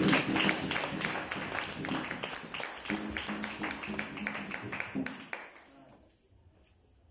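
Congregation singing a chorus to quick, steady hand-clapping, about four claps a second. It dies away about five seconds in.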